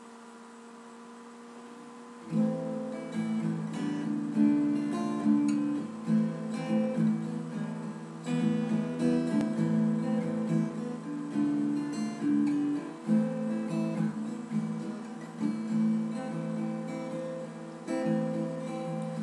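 Acoustic guitar played solo, coming in about two seconds in after a faint steady hum, with chords and notes sounding in a steady repeating pattern.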